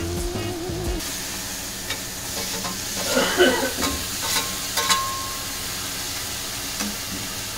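Mushrooms sautéing in oil in a pan, sizzling steadily, with a spatula stirring and scraping against the pan in a run of strokes about three to five seconds in.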